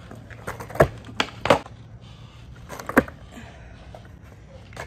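Skateboard knocking as the tail is popped and the board lands during ollie attempts: four sharp knocks, one a little under a second in, two close together around a second and a half, and one near three seconds.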